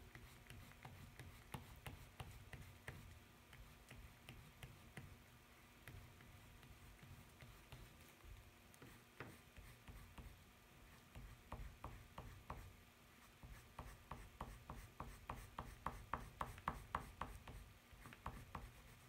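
Faint scratching of a white pastel stick rubbed over paper in short shading strokes. The strokes are sparse at first, then come quicker and a little louder, several a second, from a bit past the middle to near the end.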